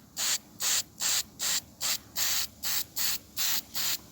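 Spray paint hissing out in about ten short, quick bursts, a couple a second, as a red glitter top coat goes onto a bench vise.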